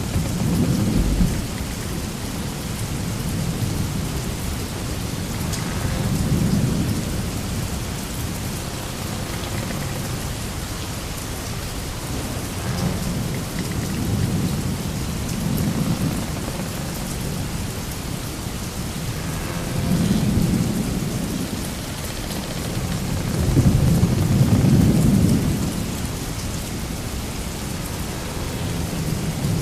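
Sailing-ship sound effect: a steady rushing noise with deep rumbling swells that rise and fade every few seconds, the loudest about three-quarters of the way through.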